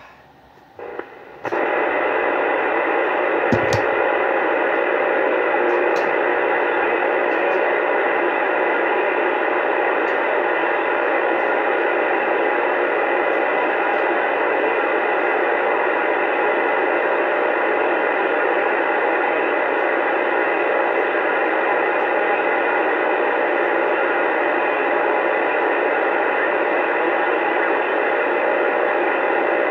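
Uniden Bearcat 980 CB radio tuned to 27.285 MHz AM, putting out a steady hiss of open-band static through its speaker with no station coming through. The hiss comes up about a second and a half in, and there is one faint click a couple of seconds later.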